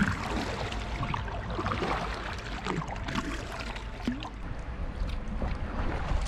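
Kayak being paddled: irregular splashes of the paddle blades dipping in and water trickling off them, over a steady low rumble.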